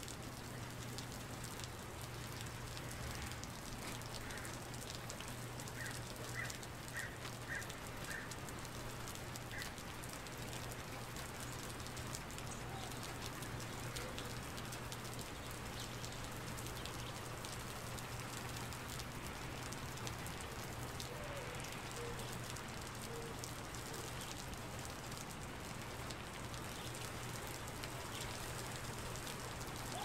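Steady rain falling on a flooded paved surface, the drops splashing into a thin sheet of standing water, with a steady low hum underneath.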